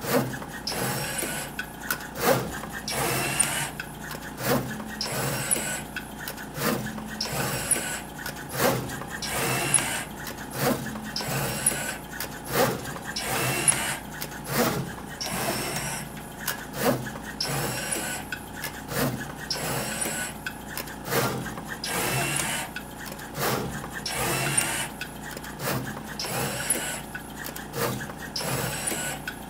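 DDM Novastar LS60V pick-and-place machine running an automatic placement cycle: its head's drive motors whir in short rising and falling runs, with sharp clicks, about once a second as it picks parts from the tape feeders and places them on the circuit board.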